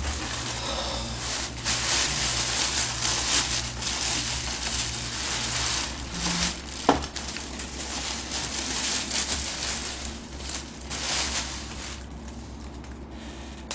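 Plastic carrier bag and wrapping rustling and crinkling as a fried-chicken delivery box is pulled out and unwrapped, with a sharp click about seven seconds in.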